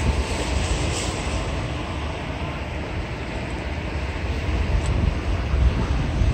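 Wind rumbling on the microphone: a steady, fairly loud low rumble with a hiss of open-air background noise over it.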